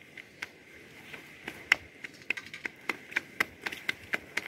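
Flatbread dough being slapped back and forth between bare palms to shape a roti: sharp, short slaps, a few scattered at first, then a quick, even rhythm of about four slaps a second from about halfway through.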